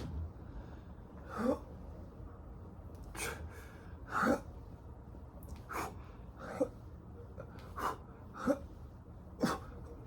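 A person's short breathy vocal sounds, about eight in ten seconds at an uneven pace, each a quick huff rising in pitch, typical of effortful exhaling during exercise.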